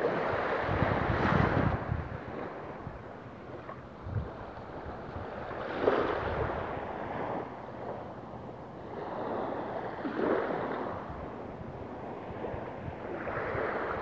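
Small sea waves lapping and washing up onto a shelly sand beach, swelling into a soft wash about every four seconds. Wind buffets the microphone.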